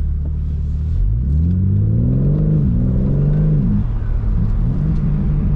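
BMW G80 M3's twin-turbo straight-six heard from inside the cabin, steady and low at first, then accelerating from about a second in with its pitch rising. The note dips briefly at a gearshift near the middle, climbs again, then falls away as the throttle comes off.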